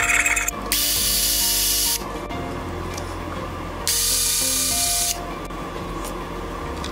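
Cordless drill with a round bit run twice in bursts of about a second, working into the wooden pistol stock. Background music plays underneath.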